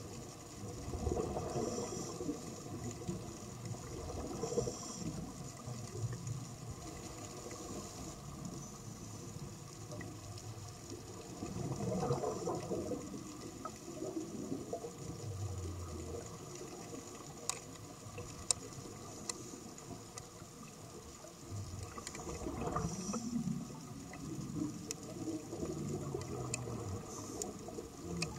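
Muffled underwater bubbling and gurgling from a scuba diver's exhaled bubbles, swelling up every several seconds, with a few sharp clicks in the middle.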